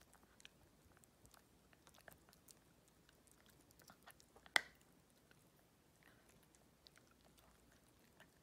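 Toy poodle puppy gnawing a dental scaling chew: faint, scattered clicks of teeth on the chew, with one sharp crunch about halfway through.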